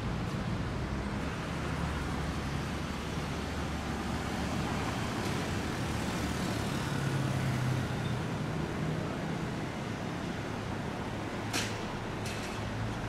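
Slow city street traffic: cars moving off and passing with a steady engine hum and tyre noise. A short sharp click comes about a second and a half before the end.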